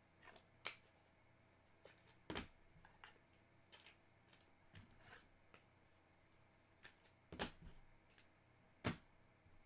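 Trading cards being handled: faint scattered taps and clicks, four of them sharper, one near the start, one a little after two seconds and two near the end.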